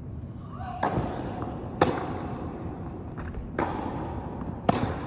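Tennis rackets striking the ball in a rally: four sharp hits, alternately fainter and louder, each echoing around a large indoor hall.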